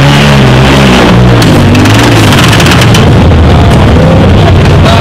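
Off-road buggy's engine revving hard under load as it climbs a mud hill, its pitch rising and falling with the throttle.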